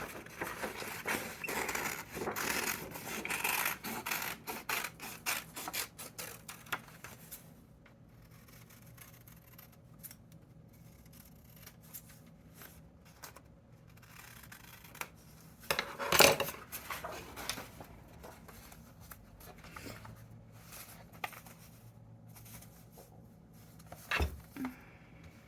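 Scissors cutting paper, with paper rustling as it is handled; the cutting is busiest over the first seven seconds, then gives way to quieter handling with sharper single sounds about two-thirds of the way through and near the end.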